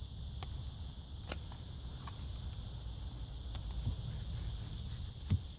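Light scrapes and scattered small clicks from handling materials and tools, over a steady low rumble, with a couple of short thuds near the end.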